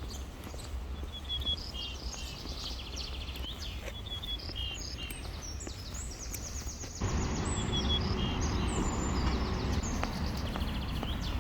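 Several small birds chirping and trilling over a steady low background rumble. About seven seconds in, a broader hiss joins and the background gets louder.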